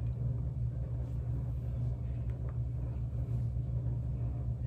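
A steady low rumble, even and unbroken, with no clear pitch and little higher sound.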